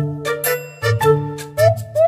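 Background music with a steady beat and a light melody.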